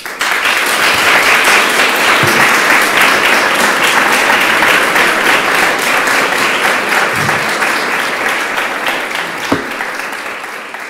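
Audience applauding, starting all at once and tapering off slightly toward the end, with a single thump near the end.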